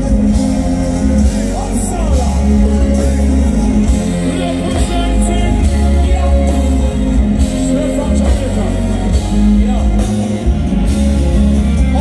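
A live reggae band playing loudly through a PA: heavy bass, drums, electric guitars and keyboards under vocals, heard from within the crowd in a large hall.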